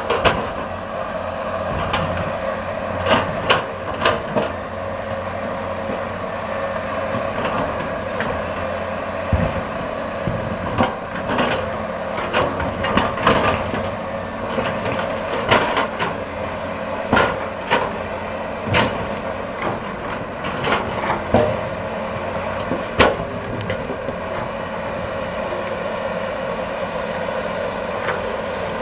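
Hydraulic excavator's diesel engine running steadily. Irregular sharp knocks and clatter come through it every second or two as the bucket digs and scrapes rock.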